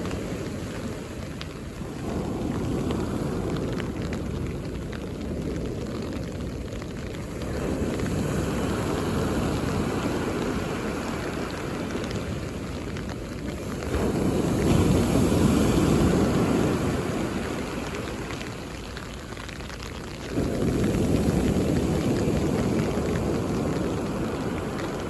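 Mediterranean sea waves breaking on a beach, one after another, each a rushing surge of wash that swells and then ebbs, roughly every five to six seconds. The loudest breaks about halfway through, and another comes in suddenly near the end.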